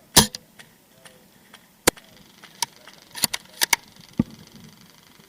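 Airsoft guns firing single shots: about eight sharp cracks at uneven intervals, the loudest just after the start and a quick pair about three and a half seconds in.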